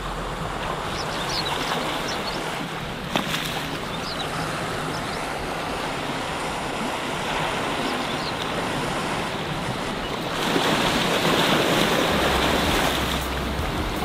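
Sea washing and lapping over low rocks at the shoreline, swelling into a louder surge of surf for a few seconds about ten seconds in. A single sharp knock sounds about three seconds in.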